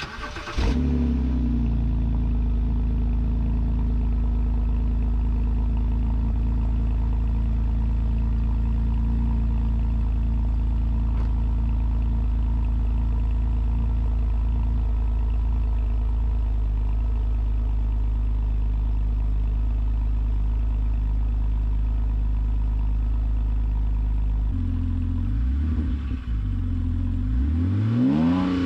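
BMW 128i's 3.0-litre straight-six, its rear muffler removed, starting up about half a second in and then idling steadily through the open exhaust. Near the end it is revved several times, the pitch rising and falling with each blip.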